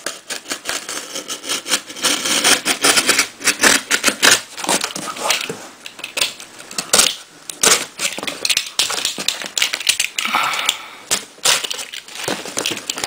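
Utility knife slitting plastic packing tape on a cardboard box, with the loosened tape being pulled and crinkled: a dense, uneven stream of crackles and scrapes.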